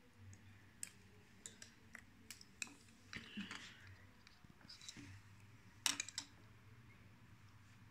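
Scattered light clicks and brief rustles of jumper wires and cables being handled and pushed onto an Arduino board's pins. A tight cluster of sharper clicks about six seconds in is the loudest moment.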